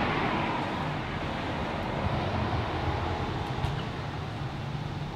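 Steady low rumble and hiss of night street ambience, slowly fading.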